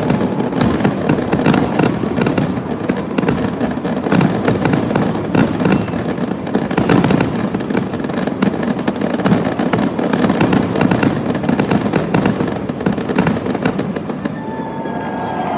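Fireworks display: a dense, continuous barrage of bangs and crackling. The barrage thins out about a second before the end, as a few held tones come in.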